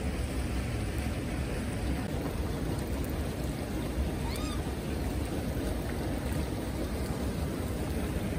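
A Japanese macaque gives one short, arched coo call about four seconds in, over a steady low rushing noise.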